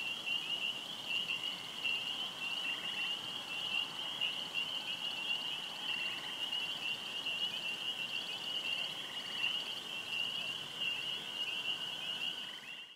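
Summer night chorus of insects: a dense, steady high-pitched trilling, with fainter pulsed calls coming and going over it. It cuts off suddenly at the end.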